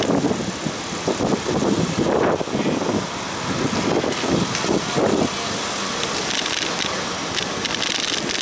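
Wind and road noise from riding a bicycle in a group along a city street. The noise surges unevenly for about the first five seconds, then settles into a steadier rush.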